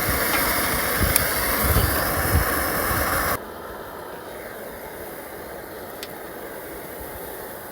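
Steady sizzling hiss of food frying in hot oil, with a few soft low knocks; it drops abruptly to a much quieter hiss about three and a half seconds in.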